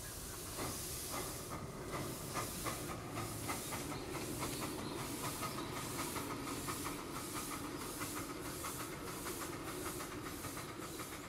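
5-inch gauge live-steam model of a JNR D51 steam locomotive chuffing steadily, about two and a half exhaust beats a second, over a steady hiss of steam.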